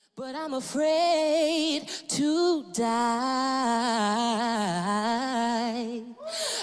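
A young man singing a cappella into a handheld microphone: one unaccompanied male voice holding long notes with vibrato, broken by a few short pauses.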